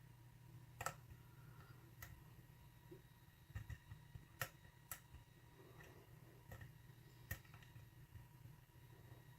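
Faint, scattered clicks of a hook pick working the pins inside a pin-tumbler lock cylinder held under tension, about seven sharp ticks spread irregularly over several seconds.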